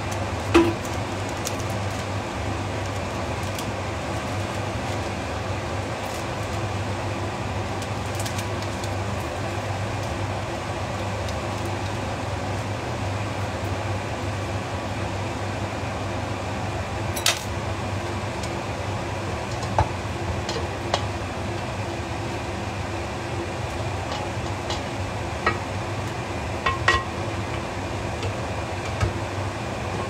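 Kitchen range hood fan running steadily, with a few light clinks of utensils and cookware. The loudest clink comes just after the start, and several more come in the second half.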